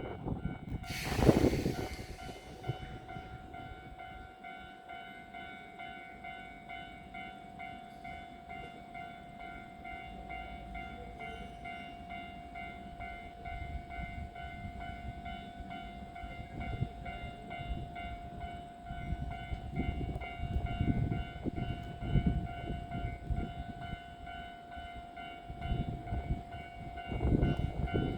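Electric train at a station platform, its electrical equipment giving off a steady whine of several held tones over a low, uneven rumble. A short burst of hiss comes about a second in.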